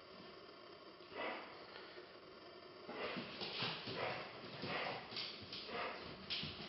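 A dog sniffing in short, breathy bursts: one about a second in, then a quick run of sniffs from about three seconds in.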